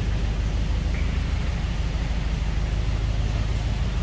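Narrowboat engine running steadily under way inside a brick canal tunnel: a constant low throb with no change in speed.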